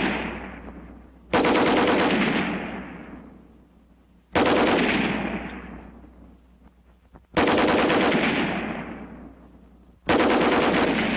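Tripod-mounted American .30-calibre heavy machine gun firing short bursts of rapid fire about every three seconds, four bursts in all, each dying away over a couple of seconds.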